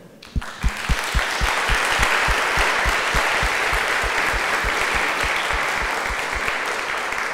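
Audience applauding at the end of a talk, with a steady clap close to the microphone about four times a second under the crowd's clapping; it begins about half a second in and eases off near the end.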